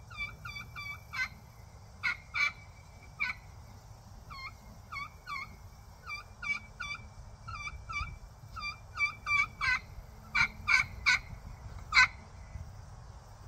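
A home-built kee kee pot turkey call, played with a rhododendron striker, running a fall kee-kee run: groups of short, high, whistled kee notes broken by louder, sharper yelps, several of them close together near the end. The kee run imitates the whistle of a young turkey.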